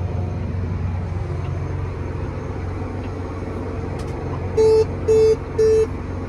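Vehicle engine running steadily with a low hum, and three short electronic beeps at one pitch about five seconds in.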